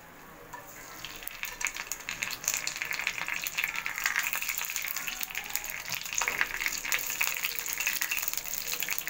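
Whole cardamom and a halved bay leaf sizzling and crackling in hot oil in a frying pan as they are tempered. It sets in about a second in and grows louder, with a silicone spatula stirring through the oil.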